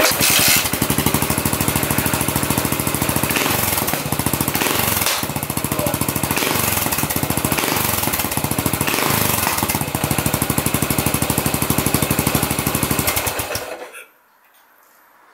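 Yamaha SR400 air-cooled single-cylinder engine kick-started and catching at once, running with an even pulsing beat through a GOODS tapered-cone slip-on muffler. It is revved briefly several times and then shut off near the end.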